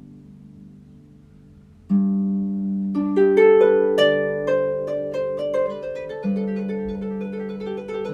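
Harp music: a chord dies away, and about two seconds in a new chord is plucked, followed by a flowing run of plucked notes over sustained bass notes.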